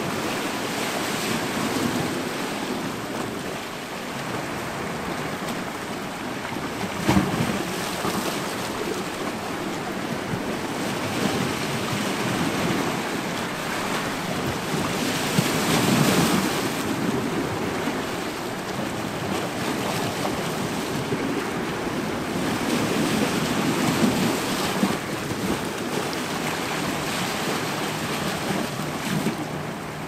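Small sea waves washing in and breaking over rocks and a rocky cliff foot: a continuous rush of surf that swells and eases with each wave. One brief sharp knock about seven seconds in.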